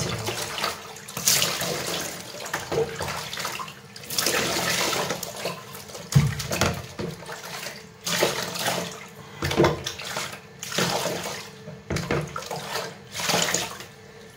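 Water splashing and sloshing in a plastic basin as a hand scoops and rubs it over a corgi puppy being bathed, in surges every second or two.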